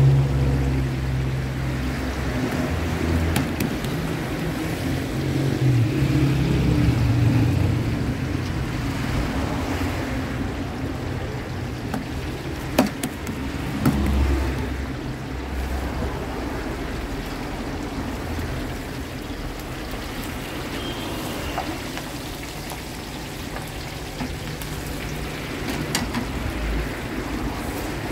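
Chapli kababs frying in a wide iron pan of hot oil: a steady sizzling hiss, with a low rumble underneath and two sharp metallic clicks of the spatula against the pan near the middle.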